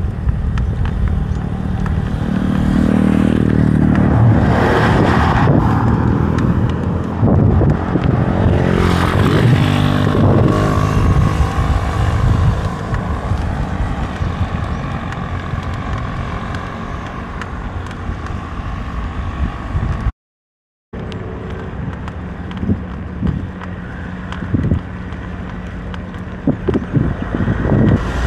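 A motor vehicle's engine passing close by over a steady outdoor rumble, loudest from about three to ten seconds in. The sound cuts out completely for about a second near the twenty-second mark.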